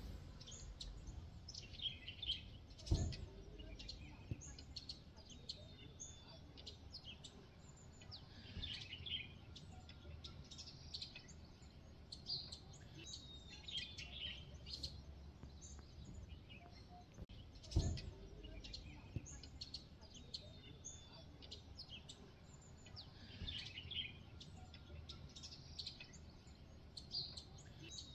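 Several small birds chirping and singing, with short repeated phrases every couple of seconds. Two dull thumps, the loudest sounds, come about 3 seconds in and again about 18 seconds in.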